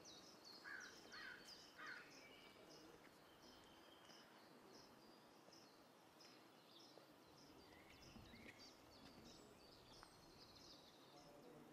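Near silence: faint outdoor ambience with birds chirping, many short high chirps throughout and a few lower calls in the first two seconds.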